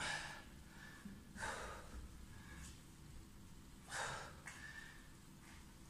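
A man breathing out hard through the mouth with the effort of a workout exercise: three strong exhalations, at the start, about a second and a half in, and about four seconds in, with lighter breaths between.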